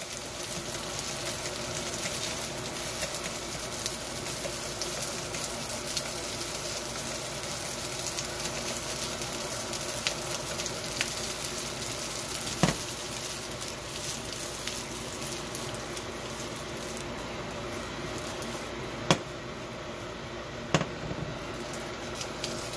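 Leftover soy-sauce rice sizzling steadily as it stir-fries in a hot wok. Wooden chopsticks knock sharply against the wok a few times, once about halfway through and twice near the end, as the rice is broken up and turned.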